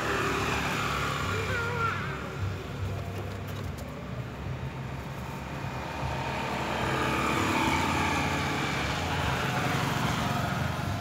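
Road traffic passing close by: a steady low engine and tyre rumble that swells about seven to nine seconds in. A brief faint squeal sounds about a second and a half in.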